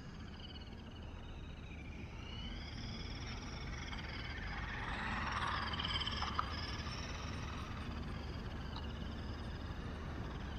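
Toy RC monster truck's small brushed electric motor whining and its tyres running on asphalt, growing louder about halfway through as the truck comes closer, then easing off as it drives away.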